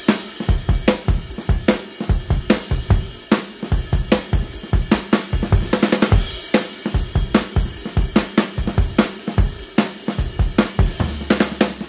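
Background music: a drum-kit beat with kick, snare and hi-hat keeping a steady rhythm.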